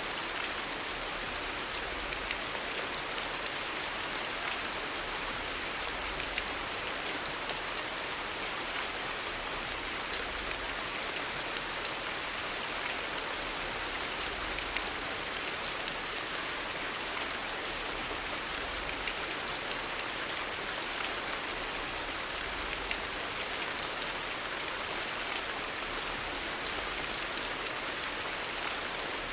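Steady rain: an even hiss with faint scattered drop ticks, unchanging throughout.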